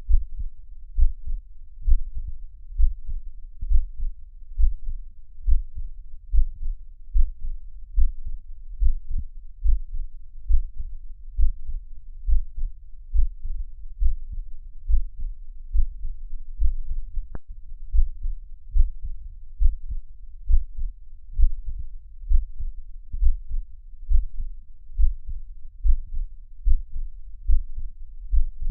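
Heartbeat: dull, low thumps in a steady, even rhythm, a little over one beat a second.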